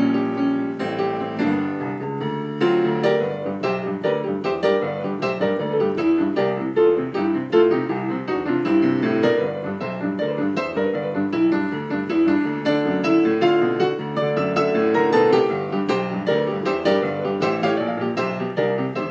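Digital keyboard with a piano sound played with both hands: a busy, fast-moving tune of many quick notes and chords.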